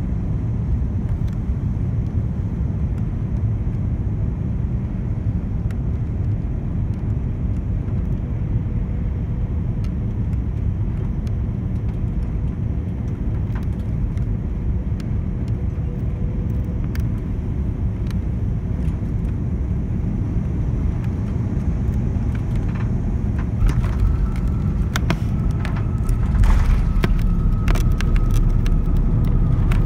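Cabin noise of an Airbus A340-600 on final approach: a steady low rumble of airflow and engines. About 23 seconds in, the wheels touch down and the rumble swells, with clattering and knocking of cabin fittings and a steady whine setting in. It grows louder again a few seconds later as the airliner rolls out on the runway.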